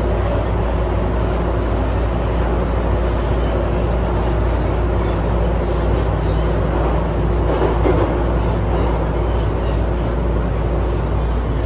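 MTR M-train running through a tunnel, heard inside the carriage: a steady rumble of wheels on rail with a low, even traction-motor hum.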